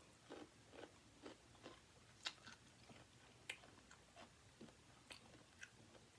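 Faint close-up chewing and mouth sounds of someone eating: soft wet smacks and small crunches, about two a second, with a couple of sharper clicks.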